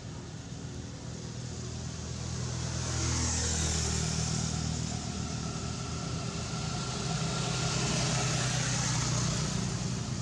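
Motor vehicle engine running steadily off-picture, growing louder about three seconds in and again around eight seconds, as traffic passes.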